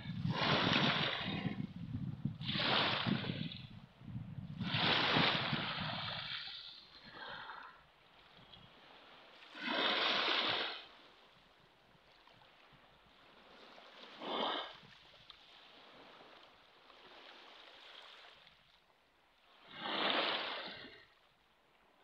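Small waves breaking and washing up a pebble beach, coming as separate swells with a hiss between them: three close together in the first six seconds, then single ones a few seconds apart, one very short.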